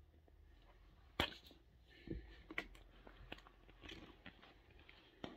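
Plastic toy packaging being pried and worked at by hand: scattered sharp clicks and short crinkles, the sharpest about a second in.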